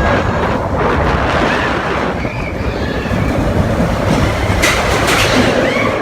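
Roller coaster train rolling along the track, its wheels rumbling and clacking with a few short squeals, and a brief burst of hiss about five seconds in.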